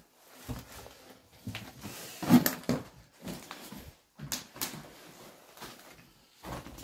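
Scattered knocks, scuffs and rustles of someone moving about a small derelict room with debris underfoot, with one sharper thump about two and a half seconds in.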